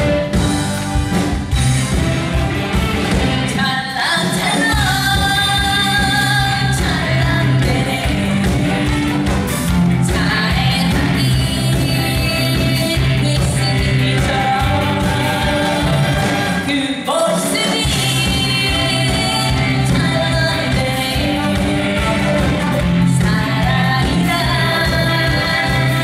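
Korean trot song performed live: a woman singing into a microphone over a live band with a steady beat.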